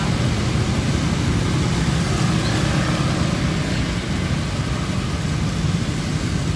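Steady road traffic on a rain-wet street: a low engine rumble from passing cars under a continuous hiss from tyres on wet asphalt.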